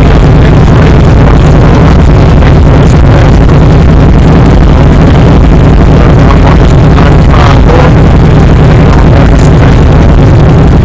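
Harley-Davidson Twin Cam V-twin idling right beside the handlebar-mounted microphone, a steady, very loud low rumble that overloads the recording.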